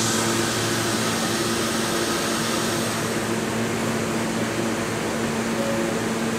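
Stationary R160 subway train's air-conditioning and auxiliary equipment humming steadily, with a few constant tones over an airy hiss that eases off in the first second.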